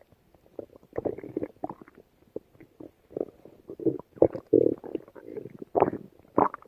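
Stomach growling: a string of irregular short gurgles and rumbles, coming in uneven bursts, with the louder ones in the second half.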